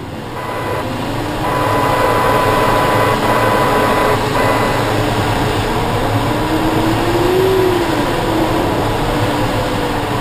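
Steady rush of airflow around the canopy, heard inside the cockpit of an ASH 31 Mi sailplane in flight, fading up over the first second or two. A faint tone slowly rises and falls in pitch under the air noise.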